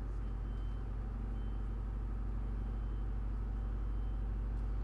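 Steady low hum with a faint hiss: the recording's background noise in a pause between narration lines.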